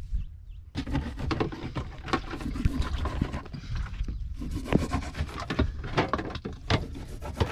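Knocks, clicks and scraping of hands and gear on a wooden fishing boat's deck, over a steady low rumble.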